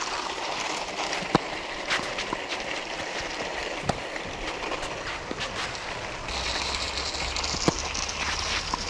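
Steady outdoor rushing noise with a few sharp knocks. About six seconds in, the noise grows louder, with a low rumble underneath.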